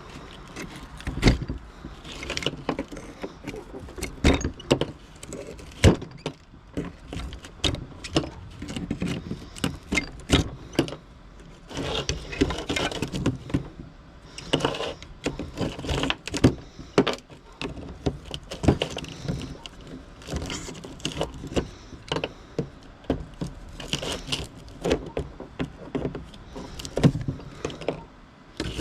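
Scrap metal pieces clinking and clattering as they are handled and sorted, a long run of sharp, irregular knocks.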